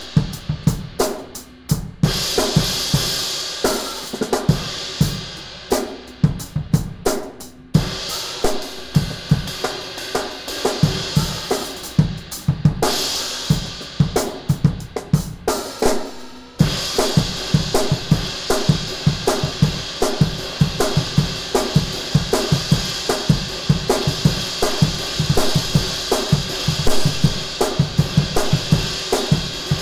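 Drum kit, with snare, bass drum and hi-hat, played under a Meinl Byzance Traditional Extra Thin Hammered 20-inch B20 bronze crash cymbal struck again and again. From a little past the middle, the crash is hit on nearly every beat and its wash rings on without a break. The crash is high-pitched, with a clear attack and medium sustain.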